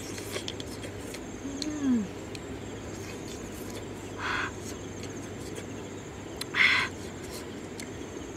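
A person eating with her hands: a short falling 'mmm' of enjoyment about two seconds in, then two brief sucking slurps of meat, about four seconds in and near seven seconds in. Faint insect chirping runs underneath.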